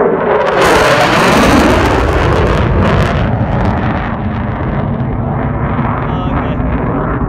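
F/A-18 Super Hornet fighter jet passing low overhead and climbing away: a loud jet roar swells about half a second in and peaks around a second and a half, with a falling pitch as it goes past, then stays loud as it climbs.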